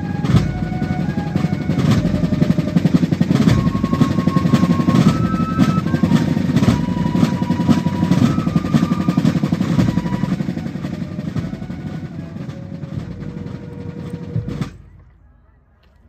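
Fife and drum corps playing a tune: fifes carrying the melody over a steady beat of drums. Near the end the tune closes on a held note and a last drum stroke, and the music stops.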